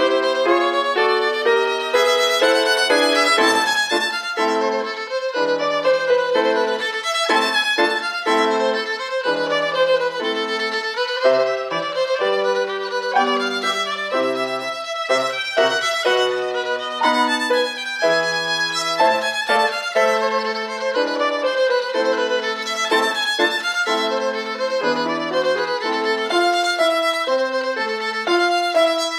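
Violin playing a quick melody of many short notes, accompanied by a grand piano.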